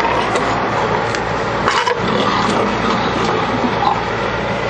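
Camera handling noise: the microphone rubs and knocks against clothing while the person walks across asphalt, over a steady, loud background din.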